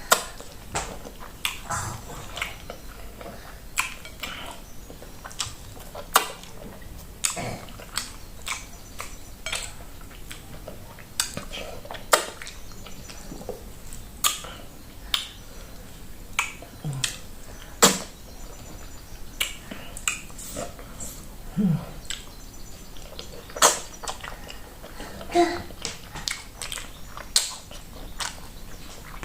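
Close-miked eating sounds of fufu with okra soup eaten by hand: irregular sharp smacks and clicks of chewing, about one or two a second, with occasional clinks against the dish.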